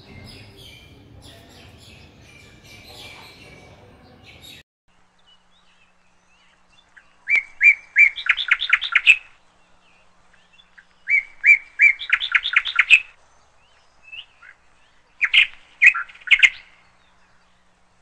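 A small songbird singing three phrases a few seconds apart, each a few separate chirps running into a quick trill. Before the song, a few seconds of faint background noise with light chirping, which cuts off suddenly.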